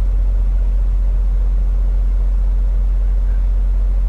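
Semi truck's diesel engine idling: a steady, unchanging low drone.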